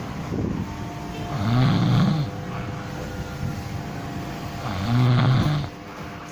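A person snoring in deep sleep: two long snores about three and a half seconds apart, over a faint steady hum.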